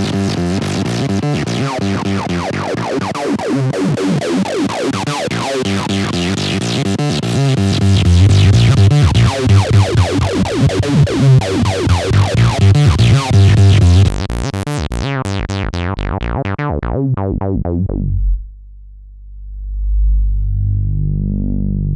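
Korg Monologue synthesizer playing a fast, distorted acid-house sequence through a Boss guitar distortion pedal. The notes thin out and the sound darkens about two thirds of the way through, leaving a low held bass note that swells once near the end.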